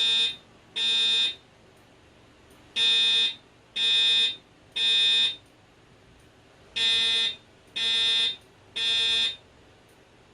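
Fire alarm voice-evacuation speaker sounding the temporal-3 evacuation tone: a loud, buzzy tone in groups of three short pulses about a second apart, with a longer pause between groups. This is the code-3 pattern that calls for evacuating the building, played between repeats of the spoken evacuation message.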